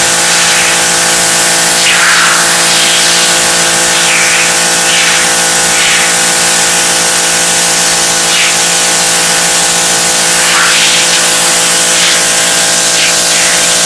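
Sun Joe SPX3500 electric pressure washer running, its brushless induction motor giving a steady whine under the constant hiss of the high-pressure water jet spraying brick and slate paving.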